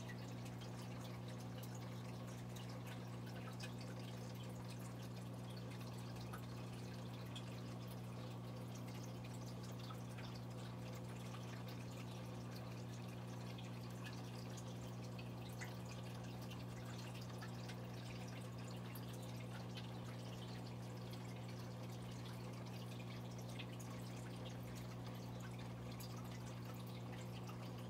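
A steady low electrical hum, unchanging throughout.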